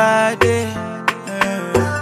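Background music: an Afropop song with a steady beat, bass and sustained melodic notes.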